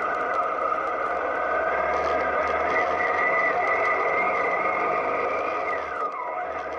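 Motorcycle engine running steadily under way, its pitch dropping sharply near the end as the bike eases off and slows.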